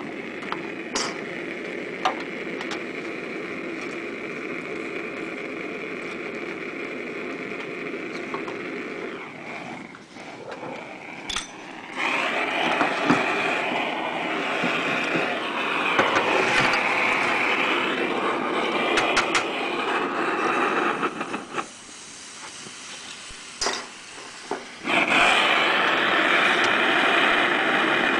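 Burner of a gas-heated soldering iron hissing steadily, much louder near the end as the iron is brought to the zinc flashing for soldering; a few light clinks of the zinc sheet being handled.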